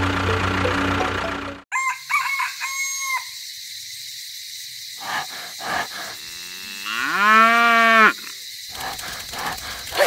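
Farmyard animal sound effects: a few short calls about two seconds in, then one long call about seven seconds in that rises in pitch and holds for about a second, the loudest sound here. Before them, a steady motor sound with music cuts off suddenly about a second and a half in.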